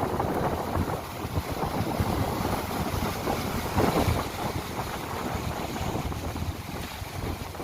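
Sea waves breaking and washing on the shore in surges, with wind buffeting the microphone in low rumbling gusts.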